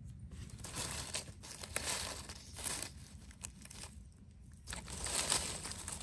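Dry leaf litter crackling and rustling in two spells, stirred by hands and a knife digging into the forest floor.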